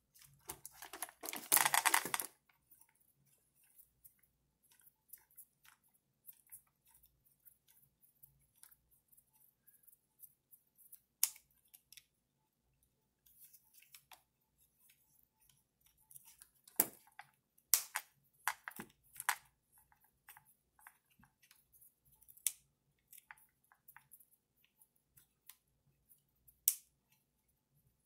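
Scattered light clicks and taps of a small hand tool and plastic RC car parts as the front bumper screws are worked out. There is one louder noisy burst of about two seconds just after the start, and a few sharper clicks around the middle and near the end.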